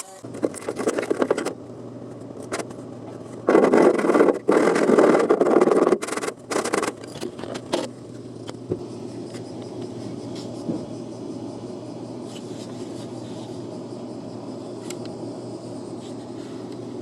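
Irregular bursts of harsh scraping on metal, loudest from about 3.5 to 7 seconds in, then a steady low hum with fainter noise.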